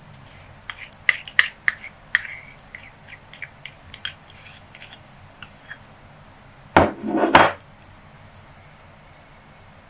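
Kitchen utensils knocking and scraping on a cake: a scatter of sharp taps in the first two seconds, then a louder scrape lasting under a second, about seven seconds in, from a ceramic bowl and spoon as strawberry filling is tipped out and spread.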